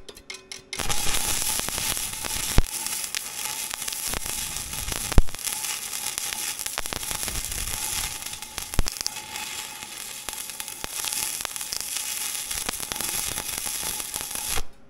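Stick welding on steel: a few scratching taps as the rod strikes the arc, then the arc crackles and sizzles steadily for about fourteen seconds and cuts off suddenly near the end.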